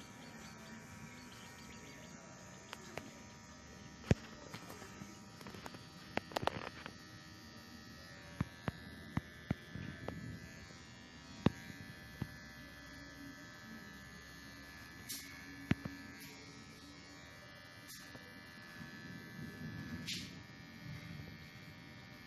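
Kemei KM-2850 electric hair clipper running with a steady buzz, with a few sharp clicks scattered through it.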